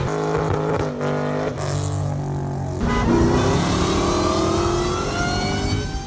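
Car engine accelerating hard. Its pitch climbs steadily through the second half after a couple of breaks.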